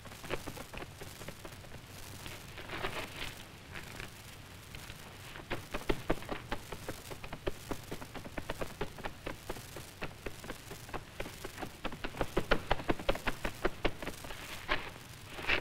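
Horses galloping: a quickening, uneven run of hoof thuds that grows louder and denser through the second half.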